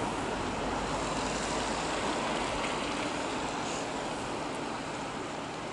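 Motor cargo barge under way: a steady rush of propeller-churned water with a low engine rumble that eases slightly toward the end as the barge pulls away.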